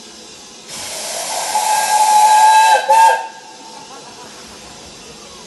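Steam locomotive whistle blowing with loud hissing steam: one blast of about two seconds, a brief break, then a short final toot, starting under a second in and stopping a little past the middle.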